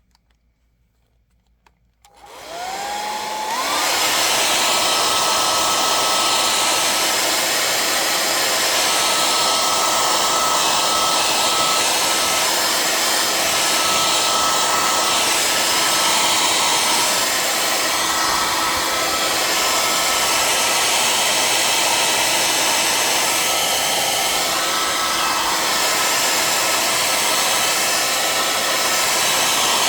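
Handheld hairdryer switched on about two seconds in, its motor whining up to speed within a second or so, then blowing steadily with a loud rush of air and a constant high whine, heating a plastic planner cover to stretch it.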